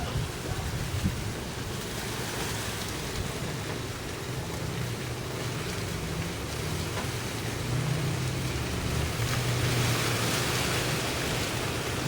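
Wind rustling through tree leaves, a steady hiss that swells a little past the middle, with a low rumble of wind buffeting the microphone.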